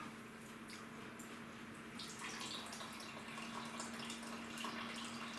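Wet string mop being worked in a plastic bucket: light dripping and splashing of water that picks up about two seconds in. A steady low hum runs underneath.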